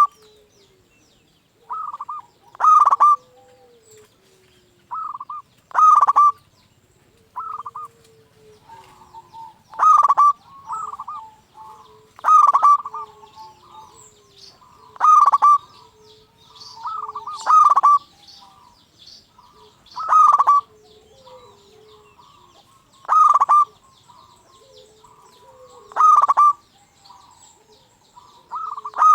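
Zebra dove (perkutut) in full song: its short cooing phrase repeated about every two and a half to three seconds, some phrases led by a quieter note.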